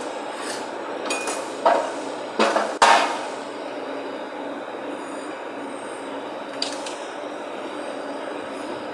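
A few sharp knocks and clanks, the loudest about three seconds in and one more later, over a steady mechanical hum, typical of hand work on a pallet jack.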